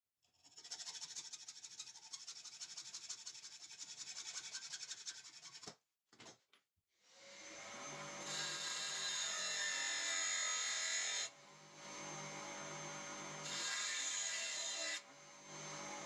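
A saw cutting through a steel rod clamped in a vise, in fast even strokes that stop about six seconds in. Then a Clarke bench grinder runs up to speed with a steady whine, and the steel rod is pressed against its wheel in two spells of louder grinding, shaping the rod's end square.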